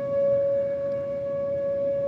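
Outdoor tornado warning siren sounding a single steady tone that holds its pitch, over low rumbling noise.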